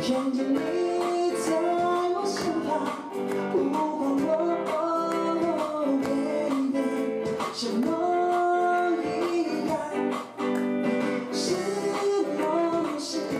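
Live band playing a song: a singer sings into a microphone over electric guitar and an electronic drum kit, with cymbal hits recurring through the song.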